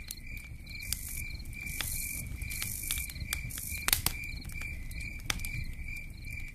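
Crickets chirping in a steady pulsing trill over a low rumble, with scattered clicks and one sharper click about four seconds in.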